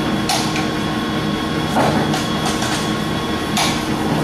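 Warner & Swasey 4A lever-head turret lathe running under power, a steady hum with a higher whine from its 40 hp drive and headstock. Several sharp metallic clunks and clicks break in as the headstock levers are worked, the loudest near the start and about three and a half seconds in.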